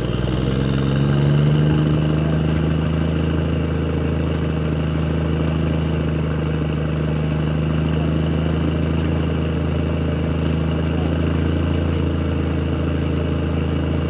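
An engine running at a steady speed, a continuous low hum that settles into one pitch about a second in.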